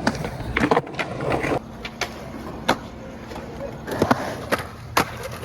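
Several skateboards clacking: scattered sharp pops and landings of boards, half a dozen or so spread over the few seconds.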